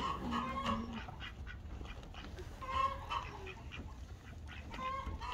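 Farmyard poultry calling: a few short calls, at the start, about three seconds in and again near the end.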